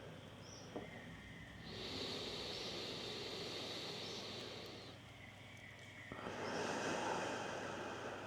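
Two long, slow breaths drawn close to the microphone, each lasting a few seconds: one starting about two seconds in, the other about six seconds in.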